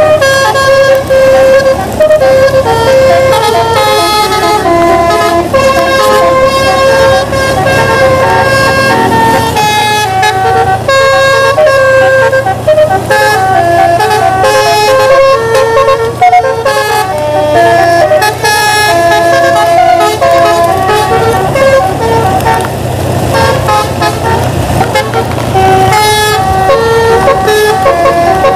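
Bus telolet musical air horn playing a quick melody of many short stepped notes without a break, with the bus's engine running steadily underneath.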